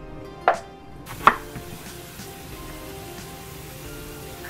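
Chef's knife chopping a green bell pepper on a wooden cutting board: two sharp knocks in the first second and a half, then only faint cuts. Quiet background music plays underneath.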